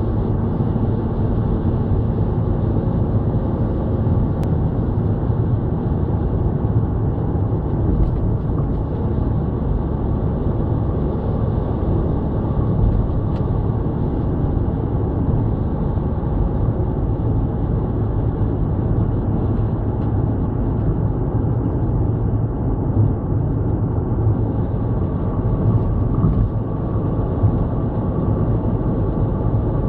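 Steady road noise inside a car cruising on a motorway: a continuous low rumble of tyres and engine.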